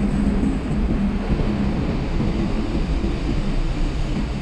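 Steady low rumble of a car's engine and tyres, heard from inside the cabin as the car drives slowly along a ferry's vehicle deck.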